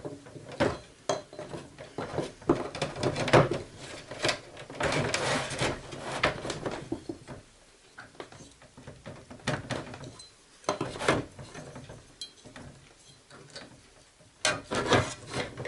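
Hand tools working on a small plastic keyboard organ's parts during a teardown: a string of sharp clicks and knocks with stretches of scraping.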